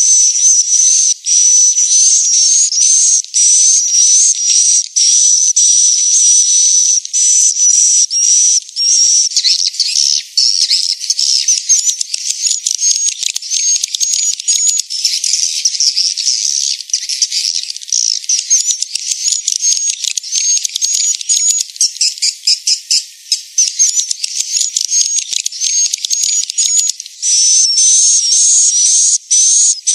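Recorded swiftlet calls, the lure track played to draw swiftlets to roost in a swiftlet house. A rapid, unbroken stream of high-pitched chirps and twitters with short breaks between calls, growing busier and more overlapping through the middle.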